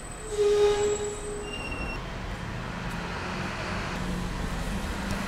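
City street traffic: a steady rumble of vehicles. About half a second in, a loud, steady pitched tone sounds for about a second, with faint high squeals around it. A low engine hum grows louder toward the end.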